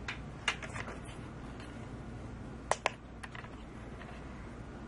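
Light clicks and taps from a handheld plastic tip thermometer being picked up and handled, with two sharp clicks close together a little past halfway, over low steady background noise.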